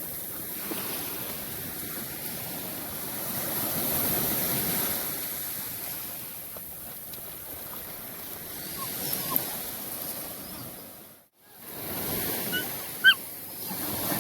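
Ocean surf washing on the beach, swelling and ebbing, with a few short high chirps late on and a sharp tap about 13 seconds in. The sound drops out briefly about 11 seconds in.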